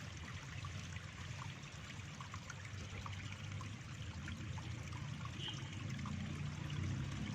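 Water trickling and flowing steadily. A low drone comes in near the end.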